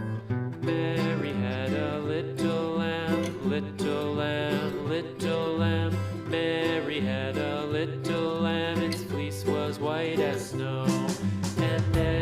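Country-style background music with guitar and a steady beat.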